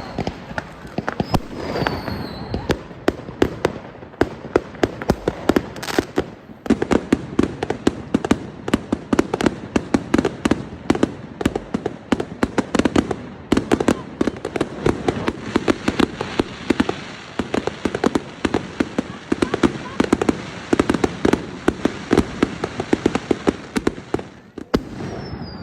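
New Year fireworks: a dense, continuous crackle of many firecracker and shell bangs going off several times a second. A whistling rocket glides down in pitch near the end.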